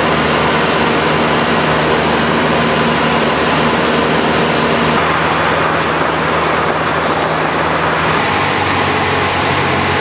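Cessna 172's piston engine and propeller drone steadily, with the rush of airflow, heard from inside the cabin. The engine's pitch shifts slightly about halfway through and again near the end.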